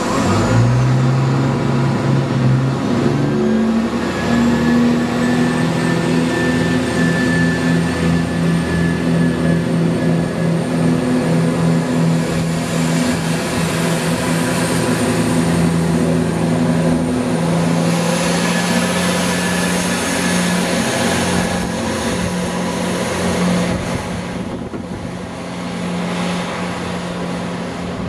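Diesel multiple unit's underfloor engine revving as the train pulls out of the station, climbing in pitch in steps over the first few seconds and then holding a steady drone with a faint high whine above it. It eases off near the end as the train draws away.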